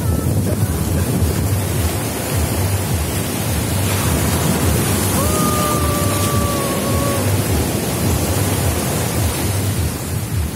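Ocean surf breaking and washing up the sand, with wind buffeting the microphone. About halfway through, a steady high tone sounds for about two seconds.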